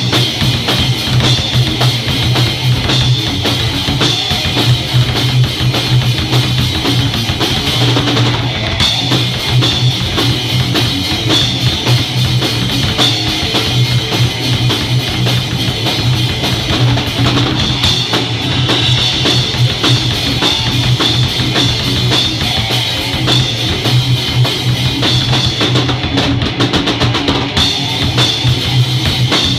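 Drum kit played hard with sticks, with bass drum and cymbals, along with rock music that has guitar in it.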